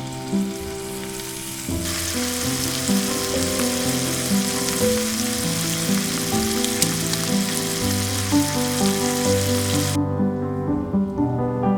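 Chicken thighs sizzling as they fry in a skillet. The sizzle grows louder about two seconds in and cuts off suddenly near the end, with background piano music throughout.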